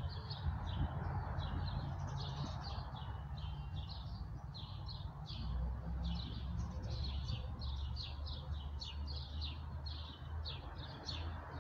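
Several songbirds singing together in a busy chorus of short, quick chirps and song phrases, over a steady low rumble.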